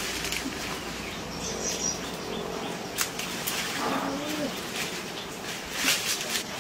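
Outdoor ambience with leaves and branches rustling and a few sharp snaps from someone climbing in a fruit tree, and a short low animal call about four seconds in.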